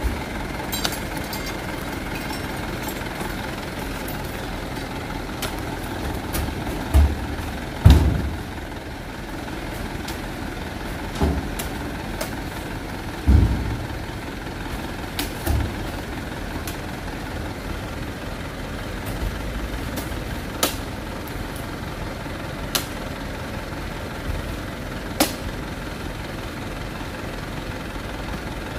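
A light diesel truck idles steadily while heavy oil palm fruit bunches are thrown up into its cargo bed. The bunches land with several dull thuds between about 7 and 16 seconds in, the loudest near 8 seconds, followed by a few sharper knocks later on.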